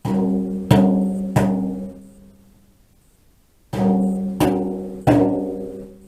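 A drum struck three times, about two-thirds of a second apart, then three times again after a pause of about two seconds. Each stroke rings on with a clear low pitch that fades away.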